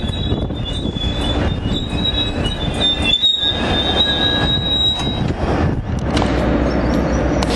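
NJ Transit passenger coaches rolling past with a high, steady wheel-and-brake squeal as the train slows into the station; the squeal dies away about five seconds in as the train comes to a stop, leaving a low rumble.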